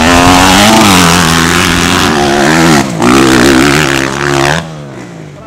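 Motocross dirt bike engine revving hard close by, its pitch rising and falling with the throttle and gear changes. It briefly breaks off just before three seconds, then falls away quieter near the end.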